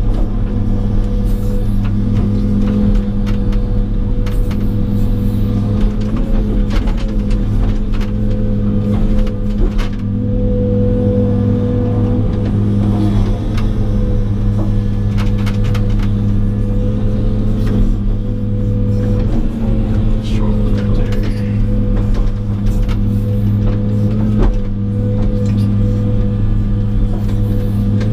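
John Deere 200 excavator's diesel engine running steadily under working load, heard from inside the cab, with scattered knocks and clunks as the bucket works logs and mud.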